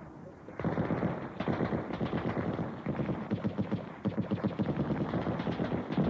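Machine-gun fire sound effect for a wartime stage scene: rapid rattling shots starting about half a second in and running on, with a brief break about two-thirds of the way through.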